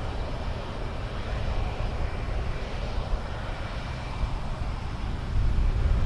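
Steady engine rumble and machinery noise of a New Holland combine harvester and tractor working side by side while the combine unloads grain into a tipper trailer on the move. The noise grows louder about five seconds in.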